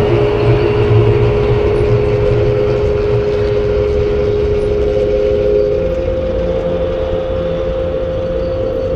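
Dark horror ambience drone: a steady low rumble under a sustained tone that shifts to a slightly higher pitch about six seconds in.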